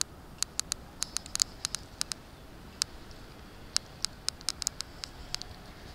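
Irregular light, sharp clicks and taps, about two dozen of them in quick uneven succession, over a faint steady background.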